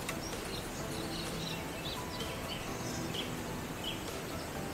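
Small birds chirping in many quick, short calls over steady outdoor background noise.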